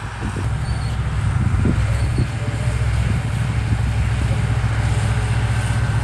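Diesel engine of heavy earthmoving machinery running steadily, a low drone that grows slightly louder about a second in.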